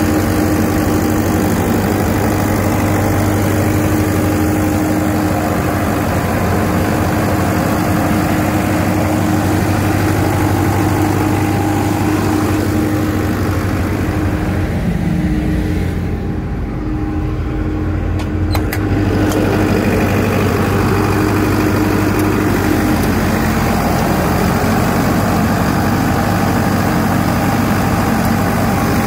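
Kohler 80ROZS generator's water-cooled Deutz diesel running steadily at its governed 1500 rpm, a constant drone with a steady hum. About halfway through it turns duller and a little quieter for a few seconds, with a couple of clicks.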